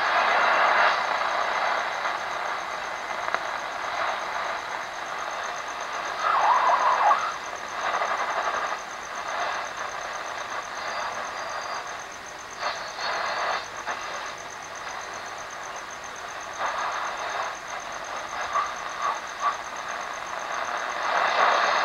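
Sonatec PRI-037U portable radio, a rebranded Pearl River set, giving out AM-band static hiss through its speaker while the tuning knob is turned. The hiss swells in short bursts now and then, with brief whistles as the dial passes weak signals, and a thin high whine runs under it.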